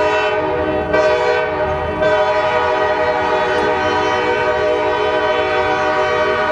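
Locomotive air horn, a Nathan K5LA five-chime, sounding a loud chord: two quick blasts about a second apart, then one long held blast.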